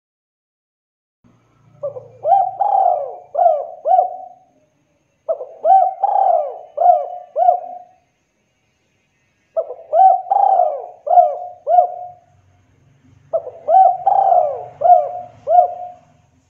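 Spotted dove (local derkuku) cooing in four phrases, each of five or six quick, arching coo notes lasting about two and a half seconds, with a pause of a second or so between phrases.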